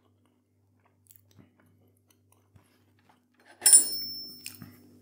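Faint chewing, then about three and a half seconds in a metal fork clatters against a dinner plate with a brief high ring.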